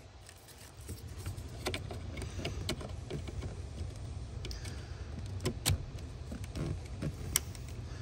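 Plastic electrical connector being pushed by hand onto a car's ignition switch: scattered small plastic clicks and rattles of the connector and wiring as it is seated and snaps into place, over a steady low hum.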